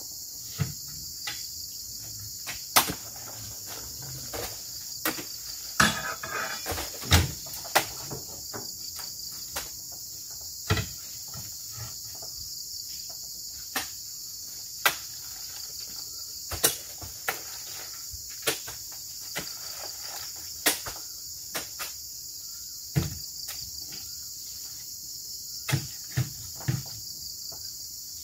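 Irregular thuds and knocks as oil palm fruit bunches are lifted on spiked poles and thrown into a small lorry's cargo bed, over a steady high-pitched insect drone.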